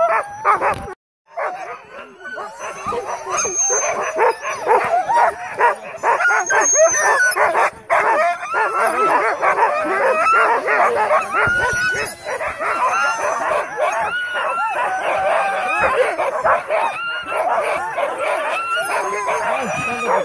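A team of harnessed sled huskies barking together, many short rising-and-falling calls overlapping without a break. The dogs are impatient to run while the sled is held stopped. The sound cuts out briefly about a second in.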